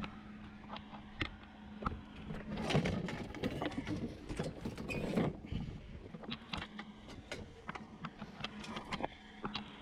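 Curbside junk being handled and shifted: scattered knocks, clicks and rattles, busiest for a few seconds in the first half, over a steady low hum.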